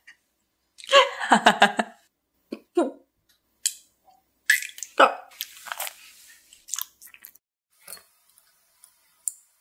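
Close-miked chewing of sticky, chewy candy, heard as irregular wet smacking and squishing mouth sounds. The chewing comes in short clusters with pauses between, heaviest about a second in and again around five seconds.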